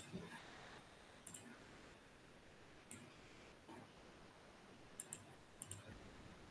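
Computer mouse clicks, single and irregular, with two quick double clicks about five seconds in, over faint room hiss.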